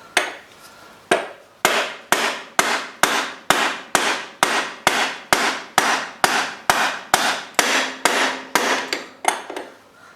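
Repeated hammer blows: two spaced strikes, then a steady run of about eighteen more at roughly two a second, each ringing briefly before the next.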